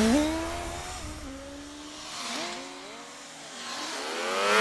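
A swooping, engine-like whine that glides up at the start, wavers and dips, then climbs steeply to its loudest near the end, like a zooming flight sound effect.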